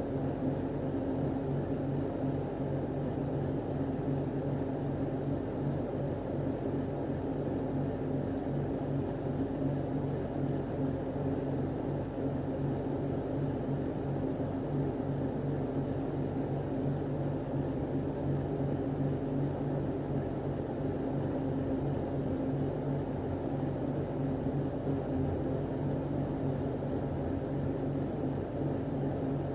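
A steady, unbroken mechanical drone with a low hum, even in level throughout.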